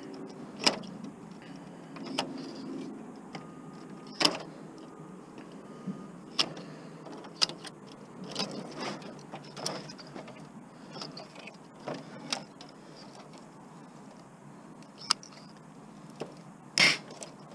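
Pliers cutting and prying parts off a TV circuit board: irregular sharp snaps and clicks, with some scraping and rattling in between and the loudest snap near the end.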